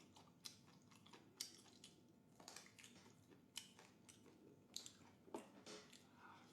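Faint chewing and mouth sounds of someone eating stewed chicken, with soft irregular clicks and smacks.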